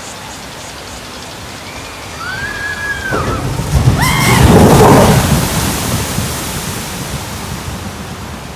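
Log flume boat plunging down the water chute and splashing through the channel, over the steady rush of the flume's running water. The rush builds from about two seconds in to a loud splash around four to five seconds, with riders screaming just before it.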